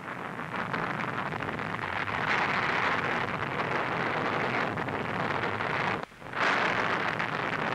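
Rushing explosion noise, the dubbed blast sound of an atomic bomb's fireball. It swells in, cuts out briefly about six seconds in, then surges back.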